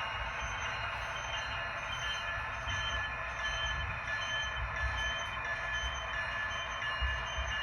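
ScaleTrains ET44AC model locomotive's sound decoder playing its diesel sound: a steady low rumble with high, thin squealing tones on top, the brake squeal.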